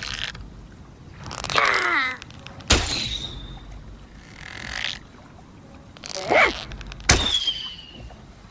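Bow and arrow sound effects: a creaking draw, then a sharp snap of the released string with a short, high, falling ring. A soft swoosh follows, then a second creaking draw and snap near the end.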